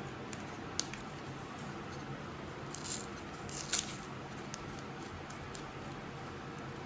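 Pokémon booster pack's foil wrapper being handled and torn open: a few small clicks, then two short crinkling rips about three and four seconds in, the second louder.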